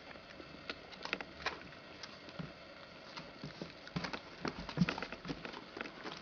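Small dog's paws and claws pattering and clicking irregularly on a fleece blanket and wooden floor as a Prague Ratter moves about among its puppies, the taps coming thicker in the second half.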